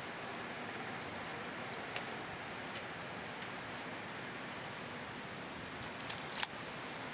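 Faint scratching and light ticks of a carpenter's pencil marking a rough wooden beam, over a steady background hiss, with two sharp clicks a fraction of a second apart about six seconds in.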